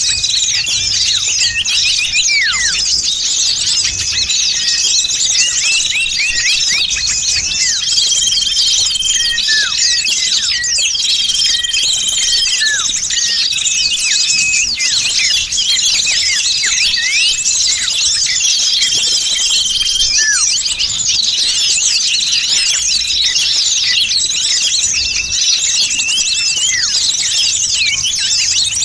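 Bird-lure recording of many small songbirds calling at once: a dense, unbroken mass of rapid high chirps and twitters, with held whistles repeating every few seconds and now and then a whistle sliding downward.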